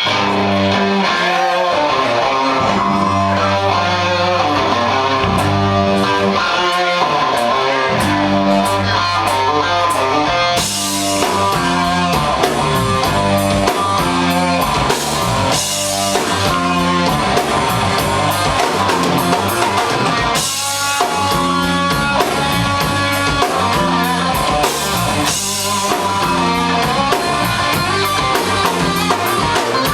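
Live rock band playing without vocals: electric guitar and bass over a drum kit, with the cymbals coming in about ten seconds in.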